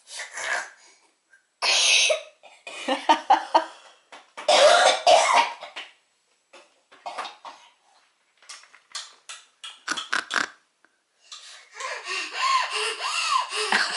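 Small dog making rough, pig-like snorts and grunts in a string of short bursts, with a few quick clicks in the middle and a longer run near the end.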